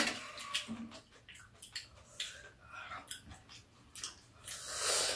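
Two people eating ginseng chicken soup (samgyetang): chewing and mouth noises, with metal spoons clicking against ceramic bowls several times. There is a louder breathy rush near the end.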